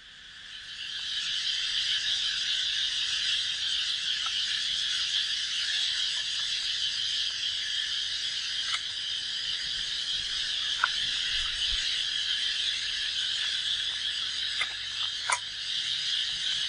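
A steady, high-pitched chorus of calling animals, fading in over the first second or two. A few faint clicks come through near the middle and near the end.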